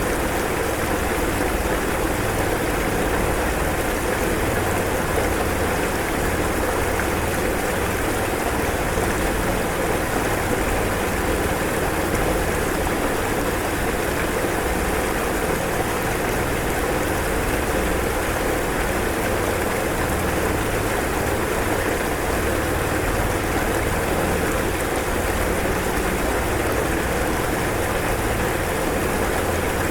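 Floodwater from an overflowing river rushing steadily, an even, unbroken noise.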